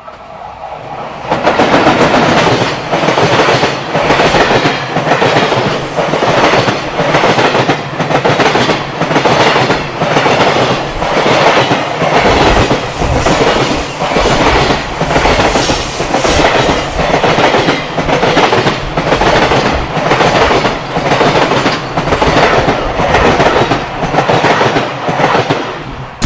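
Long freight train passing close by, its wagon wheels clattering over the rail joints in a steady rhythm of about one beat a second. It builds up over the first second or so.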